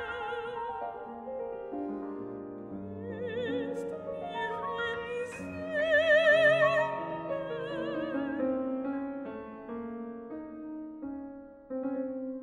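Soprano singing with wide vibrato over piano accompaniment. The voice swells to its loudest about six seconds in, and the piano continues after the voice drops near the end.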